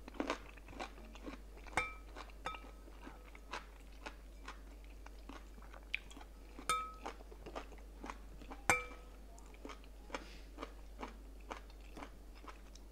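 Close-up eating sounds: chewing and crunching, with a metal spoon clinking against a glass bowl several times, loudest about nine seconds in.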